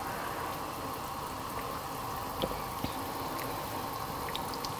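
Pot of soup boiling on the stove: a steady bubbling hiss, with a couple of faint clicks about halfway through.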